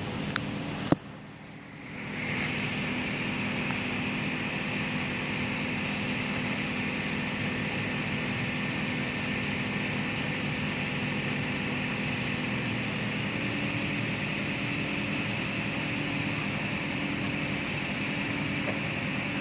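An engine running steadily, a low hum under a broad hiss. A sharp click comes about a second in, and the sound drops away for about a second before returning.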